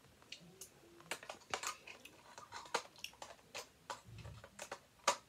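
Plastic claw hair clips and their packaging being handled: a scatter of irregular light clicks and taps, with a sharper click just before the end.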